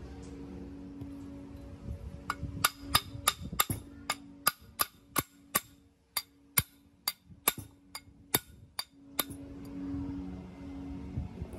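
Hammer tapping on the steel bevel-gear spindle, about twenty sharp metallic strikes, quick at first and slowing toward the end. The taps are driving the gear shaft down into its bearing in the housing.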